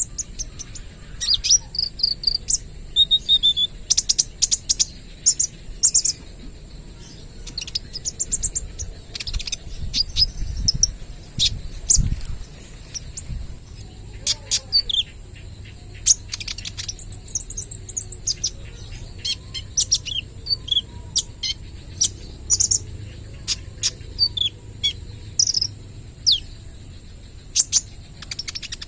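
A kolibri ninja sunbird singing without pause: quick runs of sharp, high-pitched chirps and short trills, one after another. A steady high insect drone sounds under the song.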